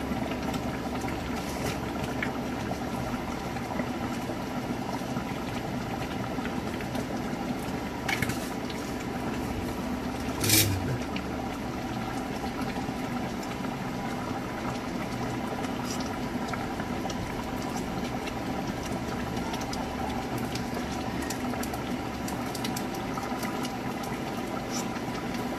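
Thick cream sauce simmering in a frying pan, a steady bubbling with fine popping. A short knock about ten seconds in.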